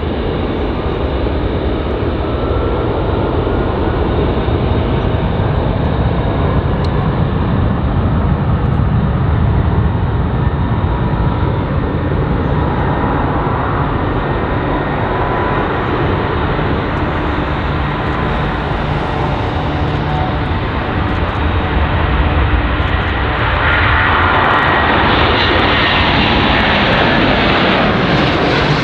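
Airbus A330-200F freighter's twin jet engines at takeoff power through the takeoff roll and climb-out: a loud, steady rumble with a faint whine. About 24 seconds in it grows louder and more hissing as the aircraft passes close by.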